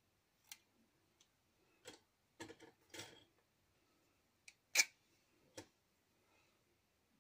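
Scattered light clicks and taps of small craft supplies being handled at a cutting mat, with a short cluster about halfway through and the sharpest click just before five seconds in.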